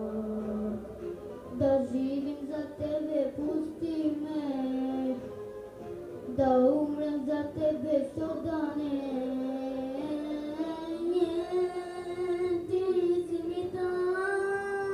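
A young boy singing a melody with long, wavering held notes and sliding changes of pitch.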